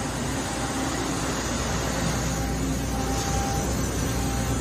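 Matsuura HPLUS-500 horizontal machining center running, with coolant spraying inside its closed enclosure: a steady hiss over a low hum, with faint steady tones.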